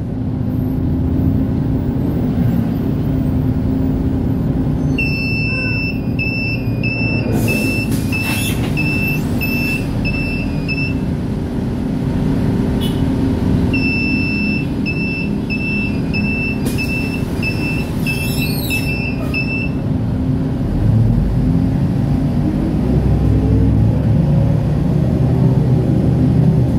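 Transjakarta city bus heard from inside: steady engine and road rumble, with an electronic warning beeper going in two runs of short beeps, about two a second, each run lasting several seconds, and a few short bursts of hiss. Near the end the engine note rises as the bus speeds up.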